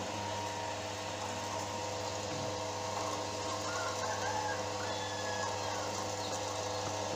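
Macaroni extruder machine running steadily, its motor and feed screw giving an even mechanical hum while dough is pushed through the die.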